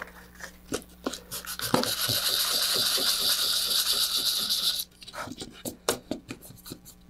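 Sandpaper rubbed by hand over a fiberglass electronics-bay sled, scuffing the surface so glue will grip: about three seconds of steady scratchy sanding that stops abruptly, with light handling clicks before and after.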